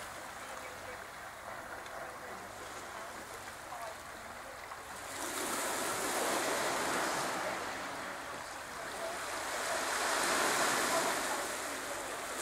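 Small sea waves washing onto a pebble beach, the surf swelling louder twice, about five and ten seconds in.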